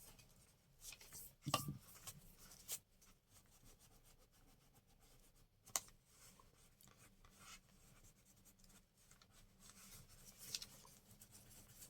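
Faint rubbing and rustling of paper as a glued piece is pressed down by hand onto a journal page, with a few soft taps.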